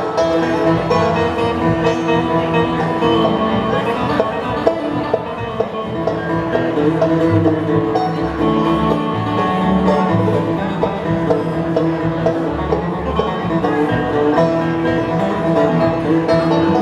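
Live bluegrass band playing an instrumental break, banjo and guitar picking over an upright bass line.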